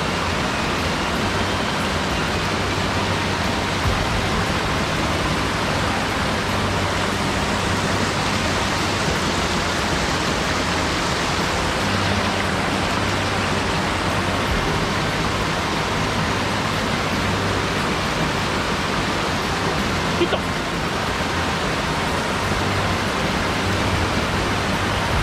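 Steady rush of a mountain stream's water running over rocks, with a brief knock about twenty seconds in.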